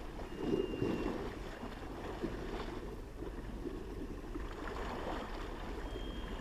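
Sea washing against the promenade sea wall, with wind on the microphone: a steady rushing that swells briefly about half a second in.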